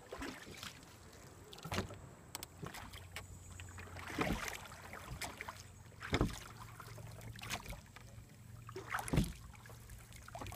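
Canoe paddle strokes: the paddle dipping and pulling through the water about every two to three seconds, each stroke a short splashing swish.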